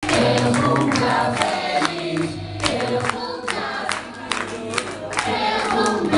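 A group of people singing a birthday song together, with hand clapping in time.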